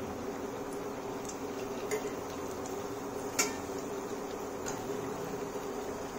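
Corn tikkis frying in hot oil in a kadhai, a steady sizzle, with a few light clicks of a utensil against the pan, the loudest about three and a half seconds in.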